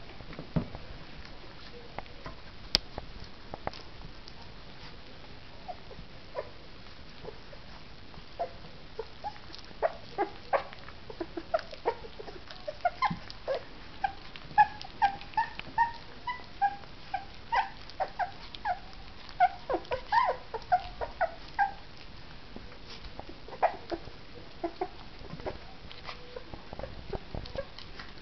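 Two three-week-old puppies eating wet puppy mush from a plate: lapping and smacking throughout, with a run of short, high whimpering squeaks through the middle.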